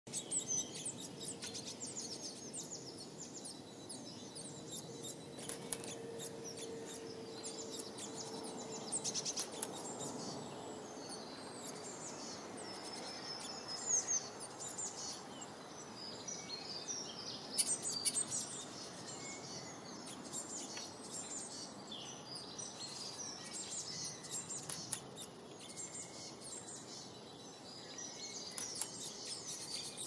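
Several small songbirds chirping and singing in quick, high, overlapping calls and trills, over steady low background noise.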